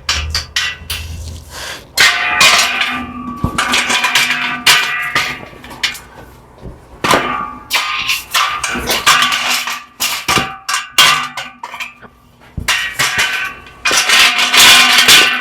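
Steel Baker scaffold parts clanking and knocking together in irregular bursts, with metallic ringing after the hits, as caster wheels and their pins are fitted into the frame legs.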